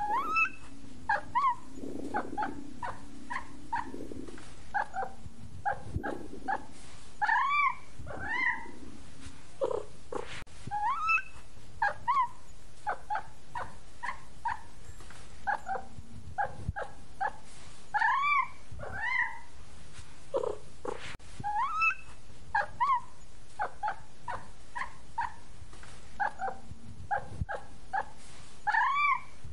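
Cat meowing in a steady run of short, high mews, some rising and falling. The same run of calls repeats about every eleven seconds.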